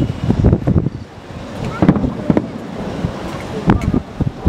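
Aerial firework shells bursting in the distance: several booms at uneven intervals over a low rumble.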